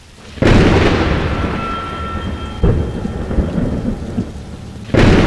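Thunderstorm sound effect: a loud thunderclap about half a second in, rumbling away over rain, with another crack near the middle and a third loud clap near the end.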